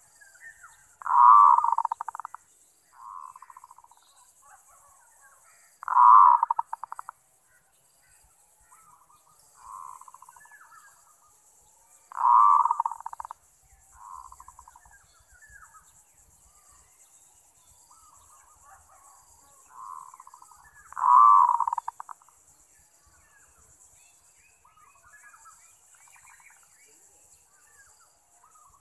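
Zebra dove (merbok) cooing: four loud bursts of rapid, stuttering coos, each about a second long and spaced roughly five to nine seconds apart, with softer coos between them.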